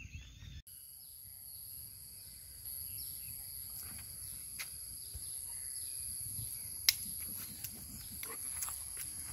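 A steady high-pitched insect buzz that sets in abruptly just under a second in and holds at one pitch, with a few sharp clicks, the loudest about seven seconds in.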